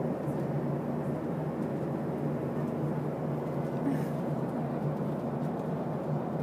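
Airliner cabin noise: a steady, even, low drone.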